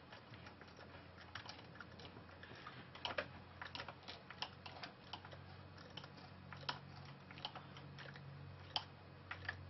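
Faint, irregular light clicks and taps of a Torx screwdriver and screws being worked into a hedge trimmer's muffler, fastening it on and tightening it.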